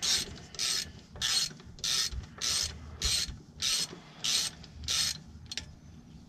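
Hand ratchet clicking on its back-swings at a steady pace, about nine strokes roughly 0.6 s apart, as a 10 mm bolt is run into the transmission's valve body. The strokes stop about five seconds in, followed by one last light click.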